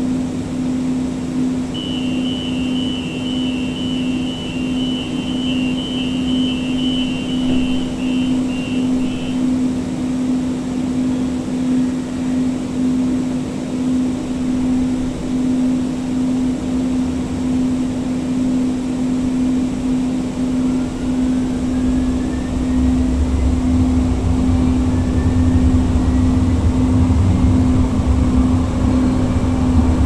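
Siemens S200 light rail vehicle, heard from inside, standing with a steady electrical hum while a rapid high-pitched door warning beeps for about seven seconds near the start. About twenty seconds in, the IGBT-VVVF traction motors' whine rises in pitch and a low running rumble grows louder as the train pulls away.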